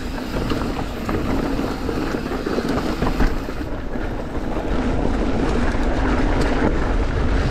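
A mountain bike riding over a rough dirt trail: tyres rolling over rocks and gravel with many small rattles and knocks, under wind rushing over the microphone. The noise grows louder about five seconds in.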